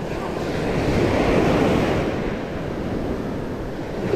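Surf washing in at the waterline, a wave swelling about a second in and easing off, with wind buffeting the microphone.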